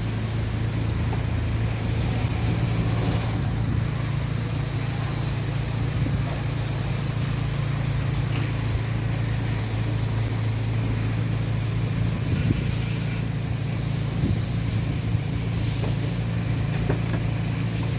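Toyota RAV4 driving, with a steady low hum of engine and road noise. No brake squeal stands out: this is the test of freshly serviced front calipers and lubricated pads, after which the squeak is judged gone.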